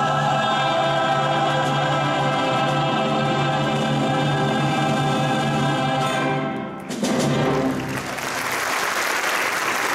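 Choir and orchestra holding a final sustained chord, which cuts off about seven seconds in. The audience then breaks into applause, which fills the rest.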